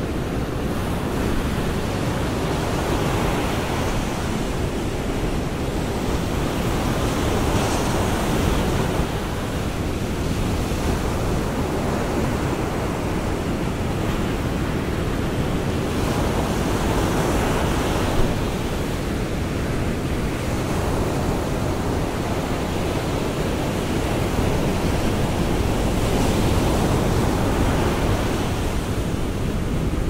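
Rough sea surf breaking on a sandy beach: a continuous wash of waves, swelling louder every several seconds as each set of breakers comes in.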